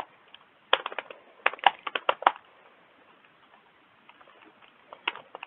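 Computer keyboard typing: two quick runs of keystrokes in the first half, a pause of about two and a half seconds, then a few more keystrokes near the end.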